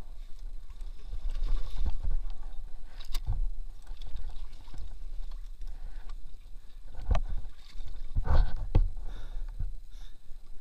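Water sloshing and splashing around a mired two-wheel-drive motorcycle as it is heaved about by hand. Several knocks and thumps stand out, the loudest a little after three seconds and around seven to nine seconds in.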